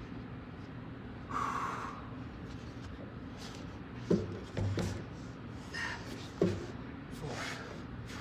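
Gymnast's hands and body knocking on a pommel horse, two sharp thumps a couple of seconds apart, with breaths and rustling between them. A steady low hum runs underneath.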